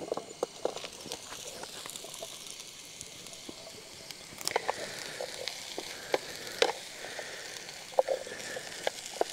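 Mushrooms frying in hot oil with onion and tomato in a pan over a wood fire: a steady sizzle with scattered sharp pops and crackles, a few louder ones in the second half.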